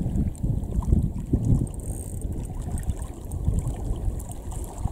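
Wind buffeting the microphone in gusts, a low uneven rumble.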